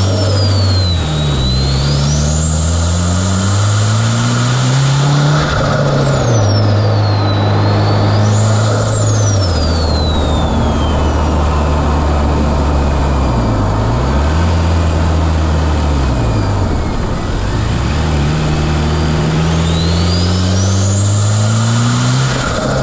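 Turbocharged 2.4-litre four-cylinder car engine under acceleration: the revs climb and drop several times through gear changes, over a high whistle that sweeps up and down.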